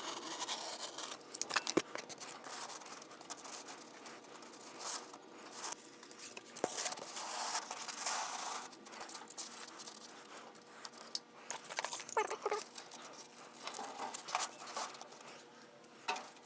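Soft kiln insulation being cut and handled by hand: irregular scraping, tearing and crumbling noises with a few sharp clicks and light knocks.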